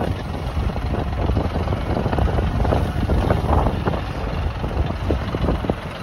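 Tractor engine running steadily, with wind buffeting the microphone.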